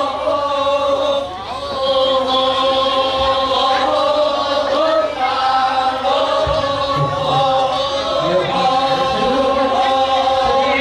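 A choir of voices chanting in long, held notes.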